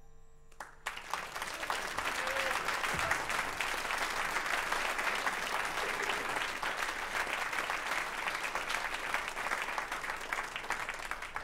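Audience applauding: a dense clapping that starts about a second in and thins out near the end.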